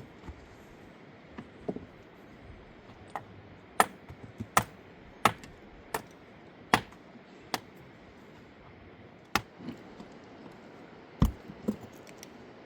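A series of sharp, irregular knocks and clicks of hard objects striking each other, about a dozen, over a steady faint hiss.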